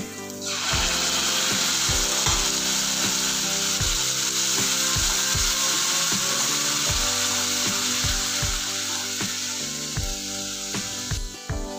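Tomato puree sizzling in hot oil in a pan. The sizzle starts suddenly about half a second in and stops shortly before the end, with background music with a steady beat underneath.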